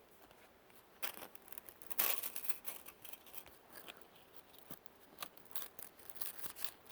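Toy slinky coils clicking and rattling against each other as the slinky is stretched and played with in the hands, in irregular faint clicks, the strongest about one and two seconds in.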